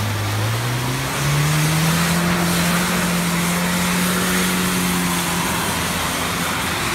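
UAZ 469 off-roader's engine revving up over the first second or so and held at high revs as the vehicle pulls through deep mud, with a steady rush of noise from the wheels churning.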